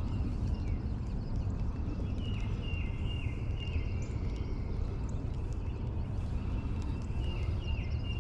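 A bird calling in short runs of three or four quick falling notes, one run a couple of seconds in and another near the end, over a steady low rumble.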